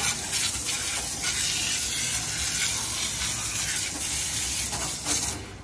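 Spray wand in a hot-tank parts washer jetting hot degreasing solution onto a drum brake backing plate: a steady hissing spray that cuts off suddenly near the end.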